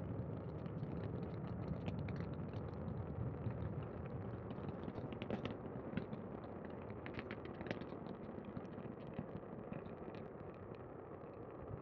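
Saturn V first stage's five F-1 rocket engines firing during ascent: a deep, continuous rumble shot through with sharp crackles, slowly fading.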